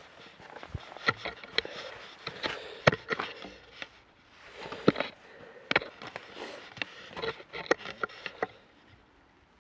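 Hands handling a wooden trail logbook box with a metal inner door: a run of irregular clicks and knocks from the door, latch and box, the sharpest about three and five seconds in.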